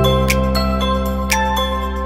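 Background music with held bass notes and chords, bright chiming notes, and a sharp percussive hit about once a second.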